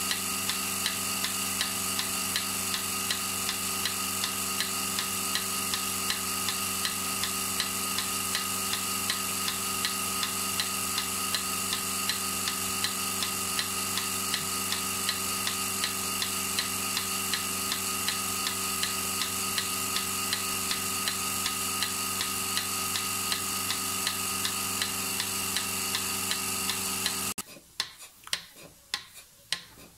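Cow milking machine running: the vacuum pump's steady hum with the pulsator ticking regularly. It cuts off suddenly near the end, followed by a few metal clanks.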